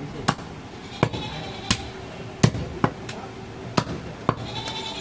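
Heavy cleaver chopping goat meat on a wooden log chopping block: a series of sharp chops at an uneven pace, roughly one every half second to second.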